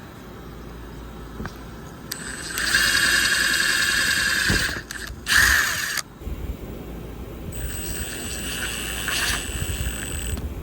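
Power drill driving screws, its motor whining in three runs: a long loud one about two seconds in, a short one in the middle, and a longer, quieter one near the end.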